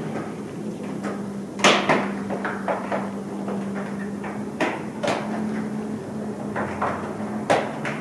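Building interior ambience: a steady low hum under irregular knocks and clattering. The loudest knock is about one and a half seconds in, and a cluster of knocks comes near the end. The hum drops slightly in pitch early on and rises back later.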